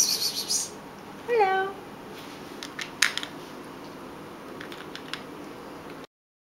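A cat gives one short, falling meow about a second and a half in, while a long-haired tabby eats dry food from a steel bowl with a few sharp clicks and crunches. The sound cuts off abruptly near the end.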